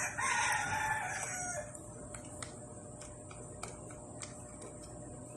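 A rooster crowing once, a single call of about a second and a half that drops in pitch at the end. Faint scattered clicks and ticks follow.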